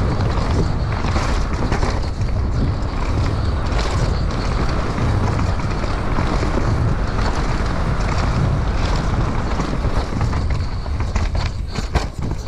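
Wind buffeting a GoPro's microphone on a downhill mountain bike at race speed, with the tyres rumbling over dirt and the bike rattling. A few sharp knocks near the end as the bike runs over rocks.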